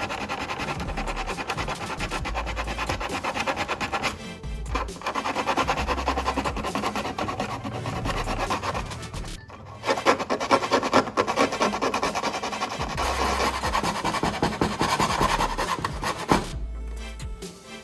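Sandpaper rubbed by hand over a plastic surface in quick back-and-forth strokes, stopping briefly twice, to smooth the repair. Background music plays underneath.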